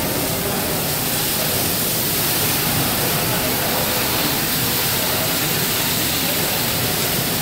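Steady loud hiss and sizzle of food and poured liquid cooking on a large round gas-fired flat-top grill, with a big flame flare-up off the cooking surface.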